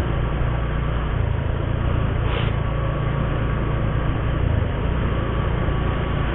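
Motorcycle engine running steadily while riding in slow traffic, with a constant low hum under road noise.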